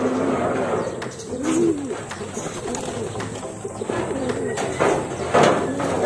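Racing pigeons cooing in their loft: repeated low coos that rise and fall, with a few sharp knocks, the loudest about five and a half seconds in.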